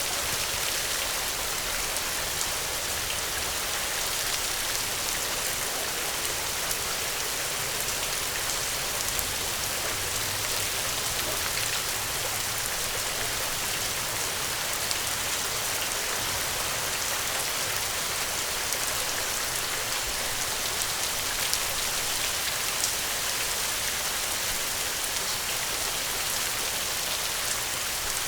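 Steady rain falling and pattering on a surface, a constant hiss with many small drop ticks.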